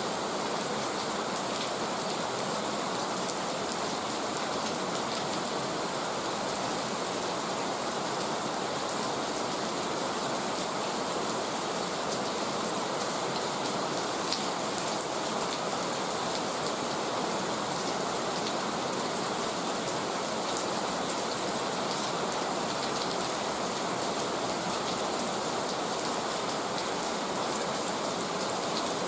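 Heavy rain falling steadily, a dense even hiss of drops with occasional sharper drop ticks.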